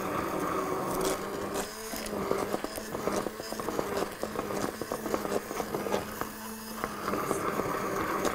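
Dried okra being beaten into a pot of stew: a steady low hum under rapid scraping and clicking of the utensil in the pot, the hum stopping near the end.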